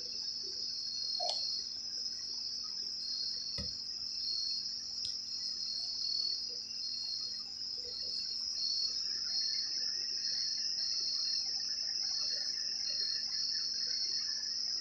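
Crickets chirping steadily in a high, evenly pulsing trill, with a few faint clicks in the first few seconds.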